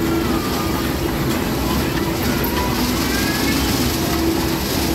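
Fairground ride machinery running: a steady low rumble with a droning hum, and faint indistinct voices in the background.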